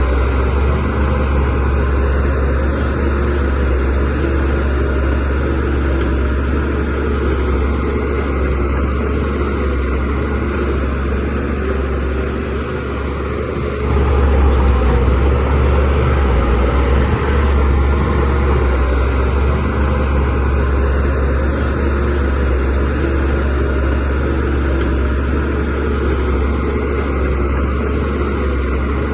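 Shantui DH17C3Pro bulldozer's diesel engine running steadily with a deep drone, easing off a little about halfway through and then growing louder again.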